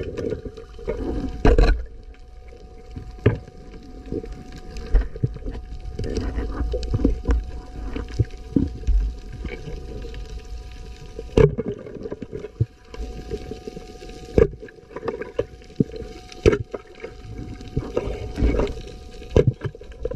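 Underwater sound heard through an action camera's waterproof housing: a muffled, low rumble of water movement with many scattered sharp clicks and knocks, and a faint steady tone.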